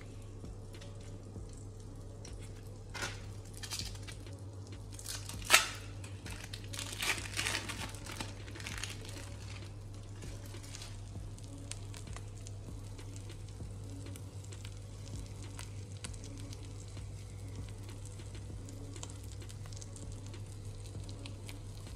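Egg-soaked bread frying in a non-stick pan, a faint steady sizzle, with the plastic wrapper of a cheese slice crinkling and a few sharp clicks in the first eight seconds, the loudest about five and a half seconds in.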